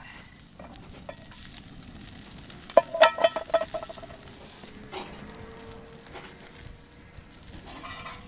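Food sizzling as it fries in a pan over a wood fire, with a utensil clinking and scraping against the pan in a quick run of ringing knocks a few seconds in.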